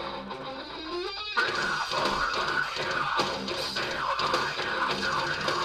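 Guitar-driven rock music played through a vibration speaker standing on an Xbox One console, with the console's case acting as the sounding board. The sound is thin and mostly midrange, and grows louder about a second in.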